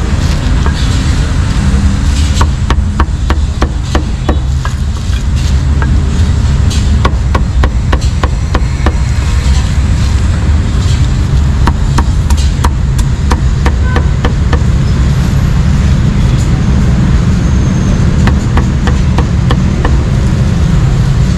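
A cleaver chopping roast meat, a run of sharp, irregular knocks that come thickest in the first half and thin out later, over a steady low rumble.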